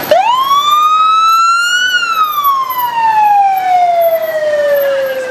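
Loud police siren wailing from a motorcycle escort: one long rise in pitch over about two seconds, then a slow fall.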